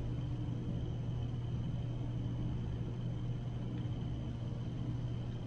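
Steady low hum with a faint even hiss: room tone.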